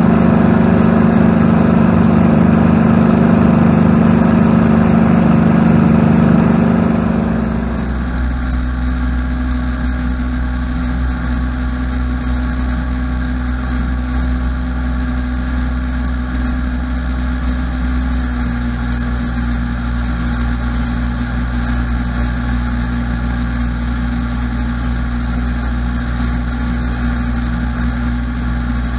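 A Spitfire's V12 piston engine running loudly and steadily, heard from inside the cockpit. About seven seconds in the sound changes abruptly to a quieter, steady aircraft engine hum heard from inside the chase plane.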